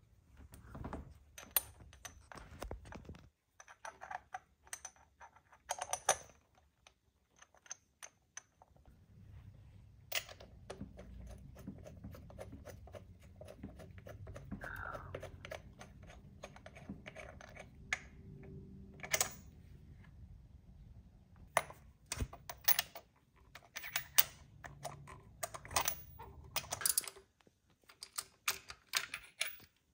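Socket ratchet clicking in short rapid runs, with taps of the metal socket and tools, as bolts at a small-block Chevy's thermostat housing are turned.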